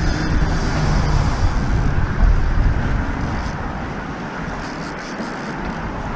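Wind buffeting the microphone, mixed with road traffic rumbling past on the neighbouring highway bridge; loudest in the first three seconds, then easing.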